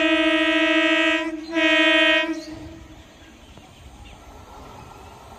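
Horn of an approaching Indian Railways electric local train (EMU): a long blast that breaks off about a second in, then a second shorter blast. A faint low rumble of the train follows.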